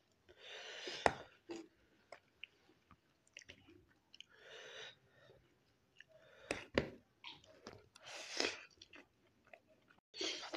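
A person eating noodles close to the microphone: chewing and wet mouth sounds, with three breathy noises and a few sharp clicks of a metal fork against the plate.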